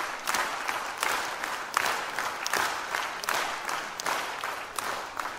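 Concert audience applauding, the clapping falling into a loose steady beat about every three-quarters of a second and dying down near the end.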